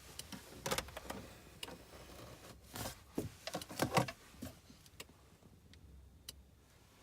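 Irregular clicking from behind the centre console of a BMW MINI Cooper S (R53) cabin with the engine off, with a louder cluster of knocks near the middle. The owner suspects a relay or switch operating.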